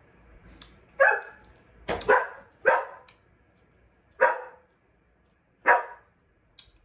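A dog barking: about six loud, sharp barks, a quick run of four in the first couple of seconds, then two more spaced out.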